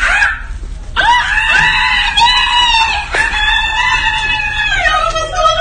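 A person screaming: a long, loud, high-pitched shriek that starts about a second in, breaks briefly around the middle, then carries on and drops in pitch near the end.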